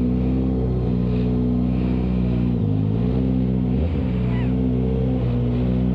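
Kawasaki ZX-4RR's inline-four engine with a cat-deleted exhaust running at a steady speed. The engine speed dips briefly a little under three seconds in and again about four seconds in.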